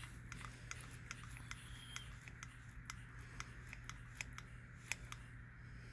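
Hand vacuum pump with gauge being worked to vacuum-test the oil seal of a Detroit Diesel 6-71 piston's wrist pin end caps: a run of faint, light clicks, about four a second, over a steady low hum.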